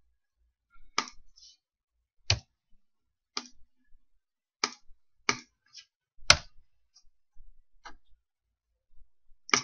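Separate sharp clicks of a computer mouse and keyboard while a spreadsheet formula is entered and cells and sheet tabs are selected, about eight clicks at uneven intervals of roughly a second.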